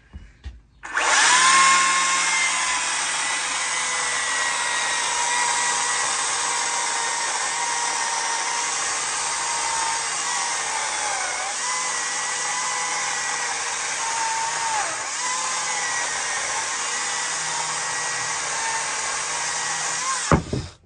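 Makita DUC355 36-volt cordless chainsaw starting up about a second in and cutting through an ash log: a loud, steady electric whine of motor and chain. Its pitch sags briefly a couple of times as the chain bites. It cuts off suddenly near the end.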